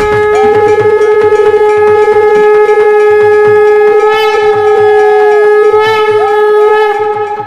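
Conch shell (shankha) blown in one long held note with quick fluttering trills, dying away near the end; the ritual conch call that heralds the goddess at Durga Puja.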